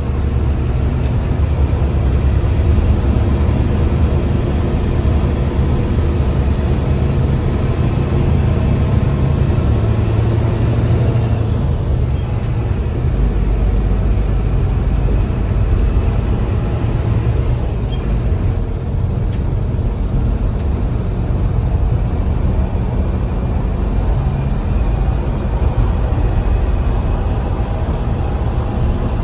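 Mercedes-Benz bus diesel engine running under load, heard from the driver's cabin: a steady drone whose note shifts slightly about halfway through. A faint high whistle from the turbocharger comes and goes a few times.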